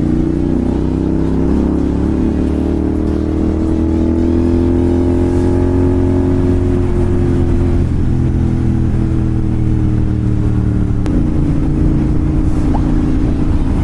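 Royal Enfield Continental GT 650's 648 cc parallel-twin engine, fitted with an SS Moto slip-on exhaust, running under load on the move. The engine note climbs slowly, dips about eight seconds in, and rises again near eleven seconds.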